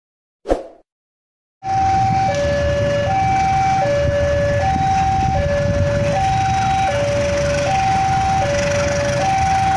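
Level-crossing warning alarm sounding its two alternating tones, high then low, each held under a second, over steady background noise. A short sound effect comes about half a second in, before the alarm starts.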